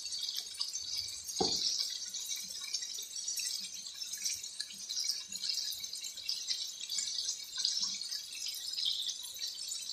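Marinated chicken pieces sizzling in oil and their own juices in a pan: a steady hiss dotted with small crackles. A short low thump sounds once, about a second and a half in.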